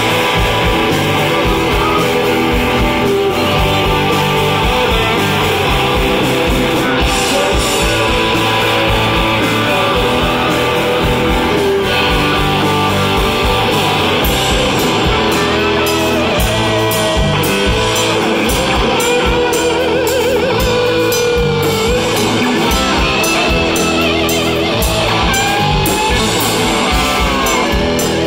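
Live rock band playing an instrumental passage: distorted electric guitars over drums. About halfway through, a lead guitar line starts, with bent, gliding notes.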